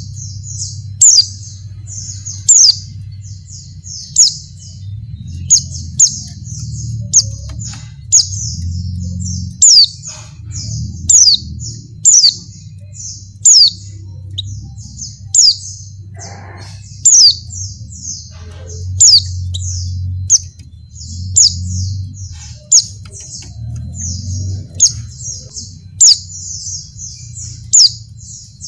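White-eye (pleci) calling: rapid, continuous high twittering chirps, broken about every second and a half by a loud, sharp, downward-swept note. It is offered as a female in breeding condition calling to males, and a steady low hum runs beneath.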